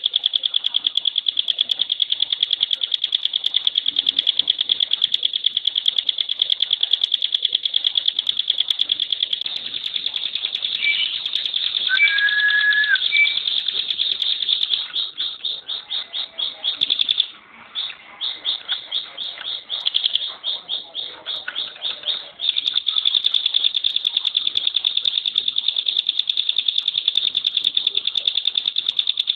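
Ciblek pinus, a prinia, singing its 'tembakan' song: a very fast, high trill of tightly packed notes. In the middle it loosens into separate pulses with a brief break, then runs tight again. A short lower whistle sounds about twelve seconds in.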